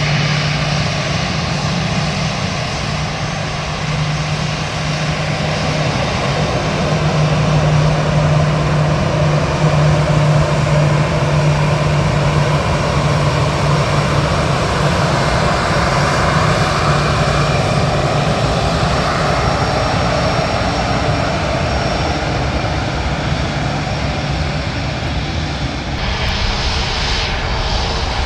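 Airbus A320's twin CFM56-5B turbofans running at taxi power as the jet rolls past: a steady low hum under a jet hiss that swells through the middle. About two seconds before the end the sound cuts to another airliner, an Airbus A321neo, taxiing.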